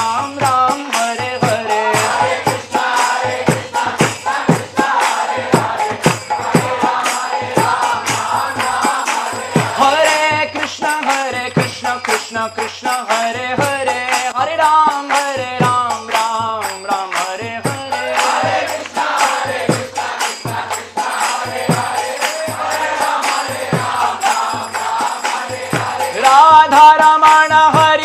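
Devotional kirtan singing by a man's voice over steady mridanga drum strokes and jingling percussion; it swells louder and fuller near the end.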